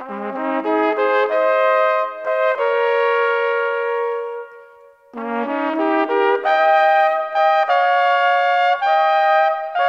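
Brass instruments playing a slow Tyrolean folk melody in several-part harmony: two phrases, each opening with a quick run up from low notes to held chords, with a short break between them about halfway through.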